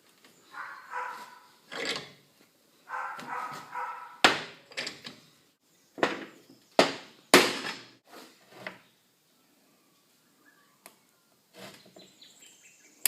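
A few sharp metallic knocks, hammer taps seating the universal joint cups in the Land Cruiser tail shaft, the loudest about four and seven seconds in. Before them come two short squeaky pitched sounds.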